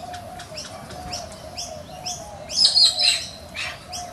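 Galahs calling: a stream of short, high-pitched chirps, several a second, thickest and loudest just past the middle, over a faint steady drone.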